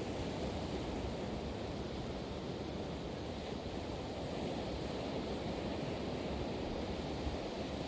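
Pacific Ocean surf: a steady, even wash of breaking waves.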